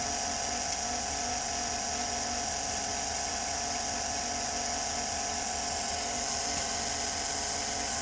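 Chevrolet Tahoe / GMC Yukon V8 engine idling steadily while parked, its electric cooling fan still off with the coolant at 93 °C, just below the 94 °C at which the fan cuts in.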